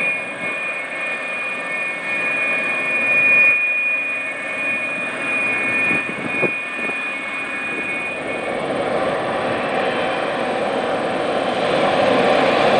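Boeing 777-300ER's GE90 turbofan engines: a steady high whine over a rushing noise at first. About two-thirds through the whine fades and a broader roar builds, growing louder toward the end, with one brief knock about halfway.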